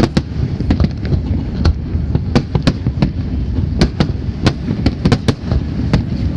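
Fireworks display: a rapid, irregular string of sharp bangs and crackles, several a second, over a continuous low rumble of shell bursts.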